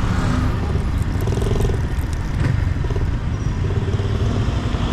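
Yamaha MT-15's single-cylinder engine running steadily through its stock exhaust while riding, with wind and road rush.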